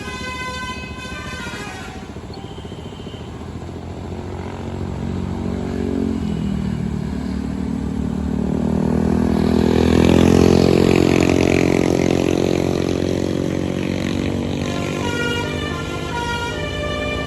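A bus passing close by with its engine note rising and swelling, loudest about ten seconds in. At the start and again near the end, a multi-tone 'telolet basuri' bus horn plays a melody of stepped notes.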